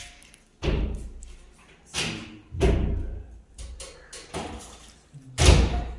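Wardrobe cabinet doors being swung open and shut, giving a series of sharp thuds and knocks, the loudest near the end.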